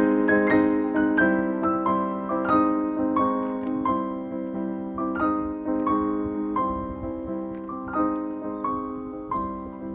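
Background music: a piano playing a slow melody of single notes over held lower chords.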